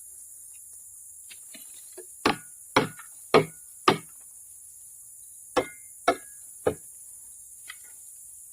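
Sharp metallic knocks as burned scrap is worked over a homemade magnet screen: four about half a second apart, then three more, each with a brief ring. A steady high insect hiss runs underneath.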